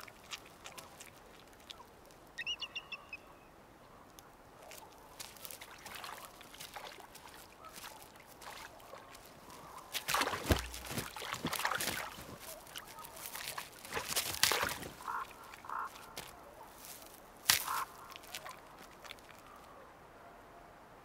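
Bird calls: a quick run of high chirping notes about two seconds in, and a few short, lower honking calls later on. Scattered sharp clicks and crackles run between them.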